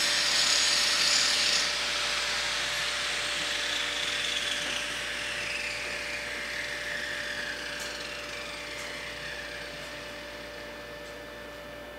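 A small electric motor whirring and winding down: the whine falls in pitch and the sound fades steadily.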